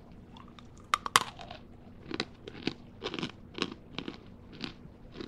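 Person biting into a freeze-dried Hi-Chew: a sharp crack about a second in as the crisp, chewy-turned-brittle candy breaks, then steady crunching chews about twice a second as it crumbles.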